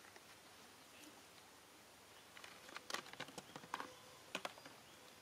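A quiet background hush, then about two seconds of quick, irregular clicks and scrapes in the middle: a macaque's hands picking through dry leaves and gravel on the ground.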